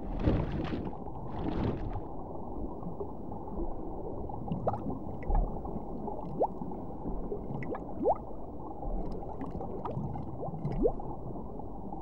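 Muffled underwater ambience: a steady low gurgling rumble of water, with two short hissing swishes in the first two seconds and a handful of brief, faint rising squeaks later on.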